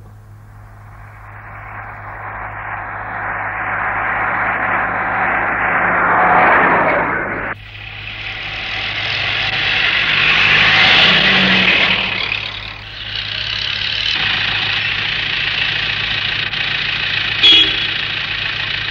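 Bus engine running while driving. It swells louder over several seconds, breaks off abruptly, then builds again and settles to a steady run over a low hum. A short sharp blip comes near the end.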